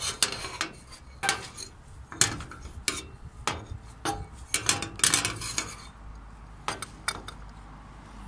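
Irregular sharp metallic clicks and clinks from a Bell & Howell 624 8mm camera's metal body and parts being handled, about a dozen in all, thinning out about six seconds in.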